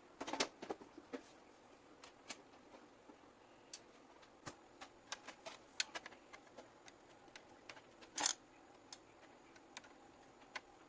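Scattered light clicks and taps of hands working on computer parts and cables, a quick cluster at the start and a brief louder rustle about eight seconds in.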